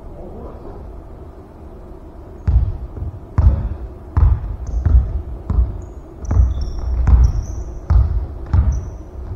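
A basketball dribbled on a hardwood gym floor: about ten bounces, a little more than one a second, starting a couple of seconds in. Short, high sneaker squeaks on the court come between the bounces.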